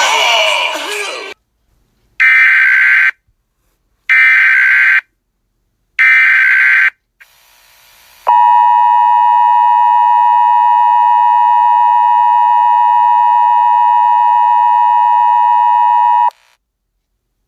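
Emergency Alert System broadcast opening: three short screeching SAME header data bursts, about two seconds apart, then the steady two-tone EAS attention signal for about eight seconds, which cuts off sharply. It announces a child abduction emergency alert.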